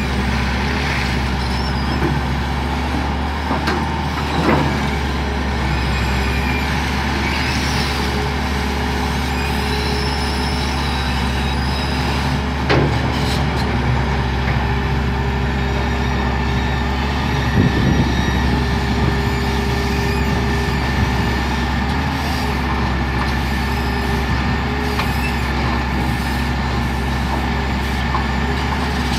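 Caterpillar 375-L hydraulic excavator's diesel engine running steadily with a deep rumble as the machine digs. A few sharp knocks, about three, come from the bucket working broken rock.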